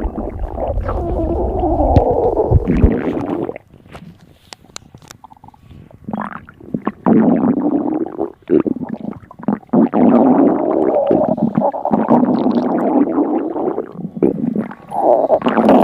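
A person's stomach growling and gurgling in long, loud runs. The gurgling breaks off about three and a half seconds in, leaving a few faint clicks, then starts again about seven seconds in and runs on, with a short pause near the end.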